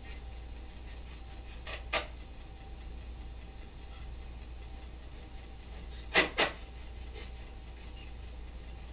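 Steady low hum and hiss of a quiet room, broken by a single sharp click about two seconds in and a louder pair of clicks in quick succession about six seconds in.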